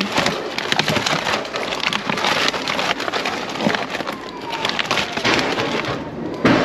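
Plastic food packaging crinkling, crackling and knocking together as a gloved hand rummages through it in a plastic wheelie bin, with a louder rustle near the end as a pack is lifted out.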